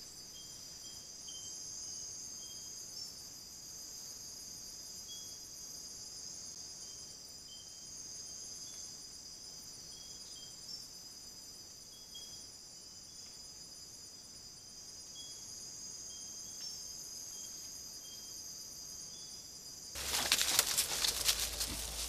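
Night insect chorus: several insects trill steadily at a high pitch, and another gives short chirps every second or so. About twenty seconds in, this gives way abruptly to louder scuffling and rustling.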